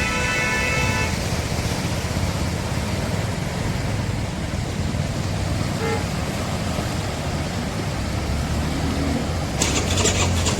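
Road traffic with a steady low engine rumble. A vehicle horn sounds for about a second at the start and gives a short toot about six seconds in, and a hissing burst of noise starts near the end.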